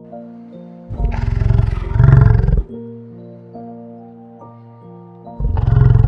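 Two loud, deep animal roars over soft background music of held notes. The first starts about a second in and lasts over a second and a half; the second comes near the end.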